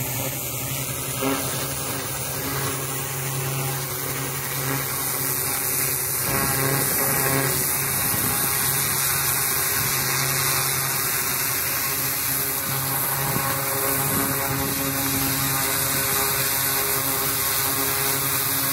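Kärcher HDS 13/20 diesel-heated hot-water pressure washer running, its 200-bar jet spraying steadily onto a wooden board. A constant hiss of spray sits over the machine's steady hum.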